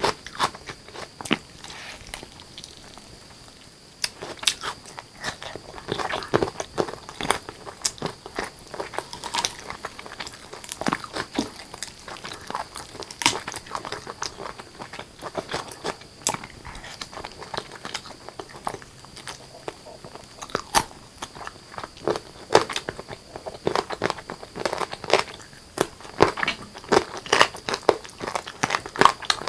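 Close-miked eating of spicy chicken curry with rice: a dense run of wet mouth clicks, bites and crunches from chewing, with a brief lull about two to four seconds in.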